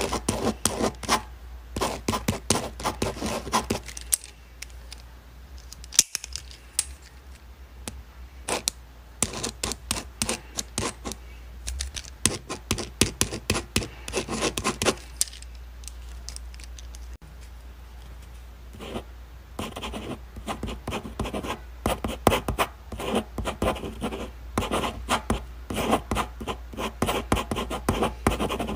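Pen scratching on paper in quick runs of strokes, twice pausing briefly, over a steady low hum.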